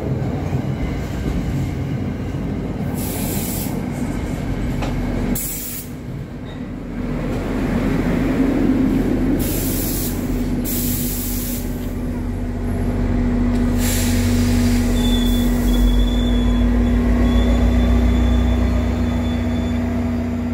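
New Jersey Transit push-pull commuter train pulling in, cab car first, its coaches rolling past close by with wheel rumble and several short bursts of hissing. From about halfway a steady drone from the diesel locomotive at the rear grows as it draws alongside, and a thin high wheel squeal comes in near the end.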